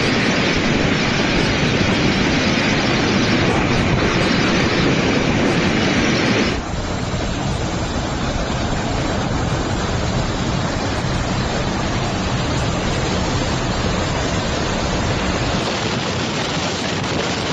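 Typhoon wind and driving rain, a steady rush of noise. About six and a half seconds in it drops suddenly to a quieter, duller rush.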